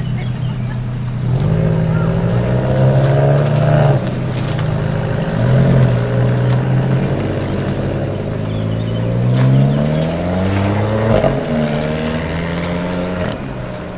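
Alfa Romeo Mole 001 and Alfa Romeo 4C sports car engines pulling away, the pitch rising three times as they accelerate, then fading near the end.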